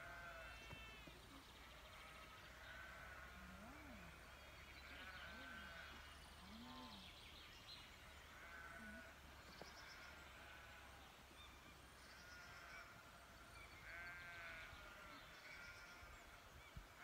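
Faint, distant animal calls, repeated every one and a half to two seconds over near silence.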